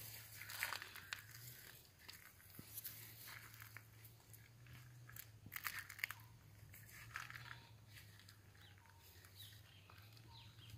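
Faint, irregular crunching and crackling of dry leaf litter underfoot, a few scattered steps, over a faint steady low hum.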